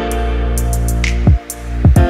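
Background electronic music with a deep, held bass and sharp high ticks. The bass dives down in pitch twice in the second half.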